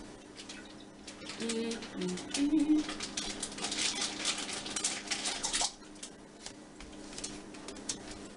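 Plastic bag of chicken breasts crinkling and rustling as it is handled, a dense crackle that stops abruptly about two-thirds of the way through.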